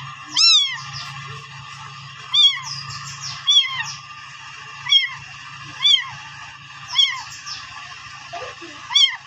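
Young stray kitten mewing over and over, about seven high-pitched cries roughly a second apart. This is the persistent crying of a kitten found away from its mother, which kept crying even after being fed.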